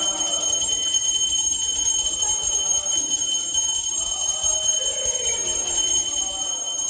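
Temple bell rung rapidly and without pause during aarti, a steady, bright high-pitched ringing.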